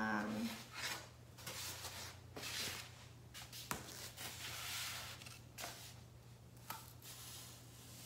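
Pen scratching and rubbing along foam board as it traces around a cut-out piece, with the board and paper sliding and rustling on a cutting mat in a few rough swishes. There is a sharp tick a little under four seconds in.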